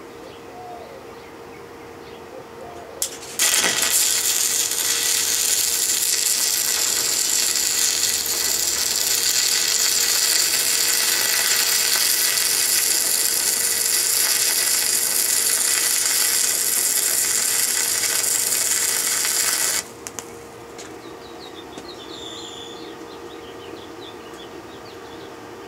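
Stick (arc) welder burning an electrode: a brief strike about three seconds in, then a steady loud crackling hiss for about sixteen seconds that stops suddenly when the arc is broken. A steady hum sits under it.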